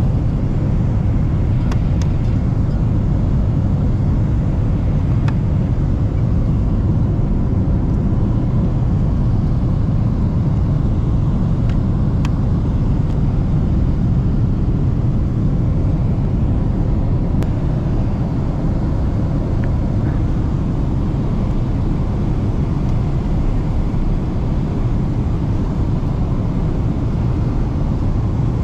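Steady low rumble of cabin noise inside a Boeing 777-300ER airliner: engine and airflow noise, even in level throughout, with a few faint ticks.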